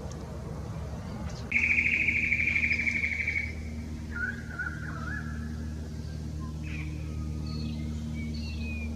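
A bird calling. It starts with a loud, rapid trill about a second and a half in that lasts about two seconds, followed by shorter calls and several thin whistled notes. A steady low hum runs underneath.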